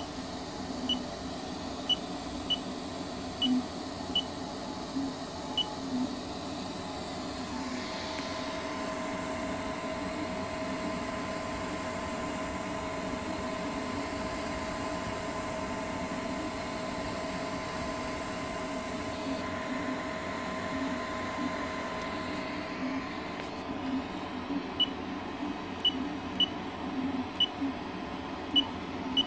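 Short high beeps from a 3D printer's touchscreen as a finger taps in numbers on its keypad. From about 8 seconds in to about 23 seconds in, the self-built 3D printer is printing, with two steady whining tones over a fan-like hiss. More keypad beeps come near the end.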